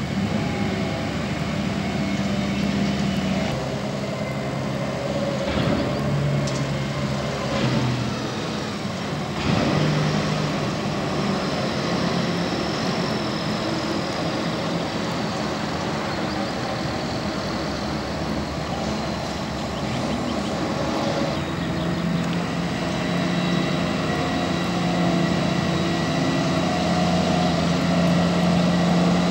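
Heavy truck engines running steadily, the engine note changing a few times; one engine grows a little louder toward the end.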